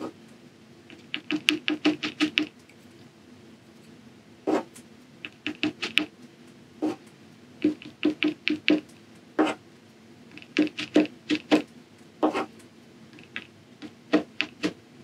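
The back end of a paintbrush handle tapping dots of liquid acrylic paint onto gessoed watercolor paper. Quick runs of light taps come several a second, with short pauses and a few single, louder taps between runs.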